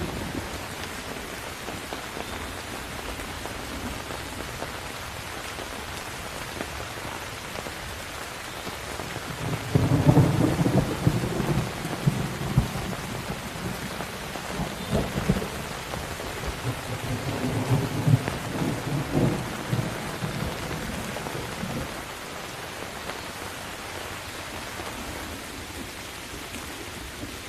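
Steady heavy rain falling, with rolling thunder: a low rumble swells in about ten seconds in and rumbles on in waves for about ten seconds before dying away, leaving the rain alone.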